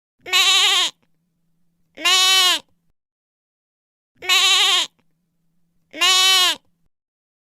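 A lamb bleating: four short, quavering bleats, about two seconds apart, each rising then falling slightly in pitch.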